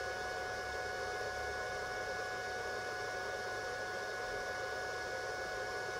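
Steady fan and electrical hum from running electronics, with a few faint, high, steady whining tones over it and no change throughout.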